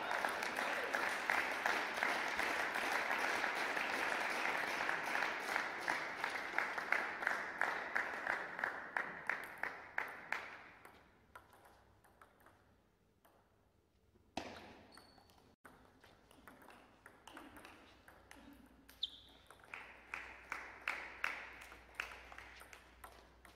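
Clapping and applause for about the first ten seconds, fading away. After a short lull, a table tennis ball clicks sharply off bats and the table as play resumes. A few short high squeaks come in among the clicks.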